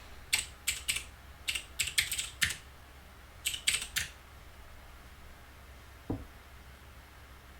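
Typing on a computer keyboard: several quick bursts of key clicks over the first four seconds. About six seconds in there is a single short thump that falls in pitch.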